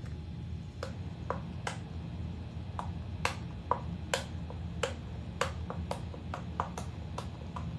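Butterfly-shaped silicone pop-it fidget toy having its bubbles pressed one after another: about twenty sharp little pops at an uneven pace, each dropping slightly in pitch.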